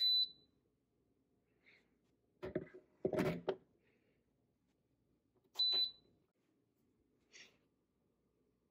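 Two short, high electronic beeps about five and a half seconds apart, with a few knocks and a brief clatter between them.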